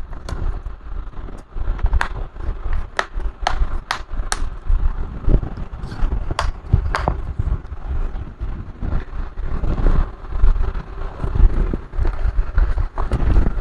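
Sharp clicks and taps of plastic laptop casing parts being handled and fitted together, over a low rumble.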